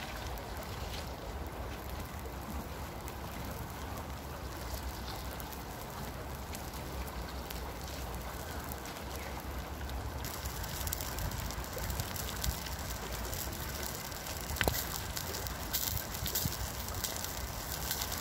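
Steady rush of flowing river water, with scattered faint ticks and crackles from the hot charcoal, more of them in the second half.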